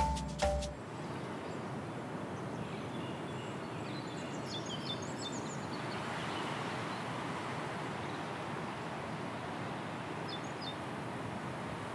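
The last notes of background music stop just under a second in, leaving steady woodland ambience: an even, soft hiss of open air. A few faint bird chirps come a few seconds in and again near the end.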